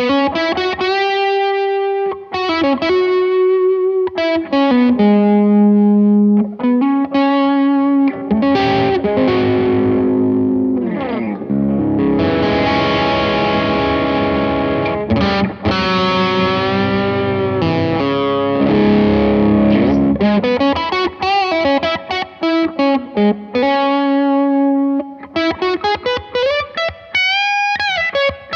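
Electric guitar played through a Blackstar JJN20 MkII amp with a distorted tone: single-note lead lines with string bends and slides. About halfway in there is a heavier, denser stretch of distorted chords lasting several seconds.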